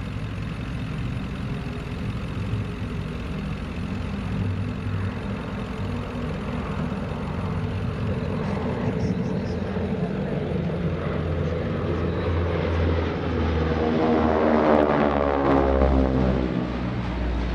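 Three North American T-6 Texans' Pratt & Whitney R-1340 Wasp radial engines droning in a formation flypast. They grow louder as the planes close in, are loudest as they pass overhead about 14 to 16 seconds in, and the pitch falls as they go by.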